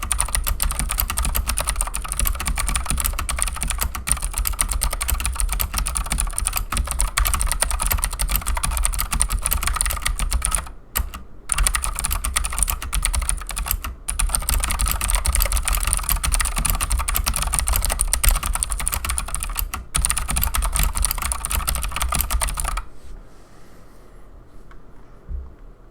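Fast continuous typing on a Keychron C2 mechanical keyboard with clicky Gateron Blue switches and stock keycaps, a dense stream of sharp clicks with a few short breaks. The typing stops about three seconds before the end.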